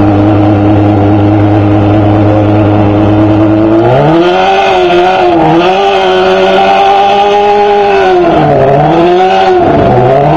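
A vehicle engine running at a steady, even pitch, then revving up about four seconds in and holding the higher revs, with the pitch dropping and climbing back a few times near the end.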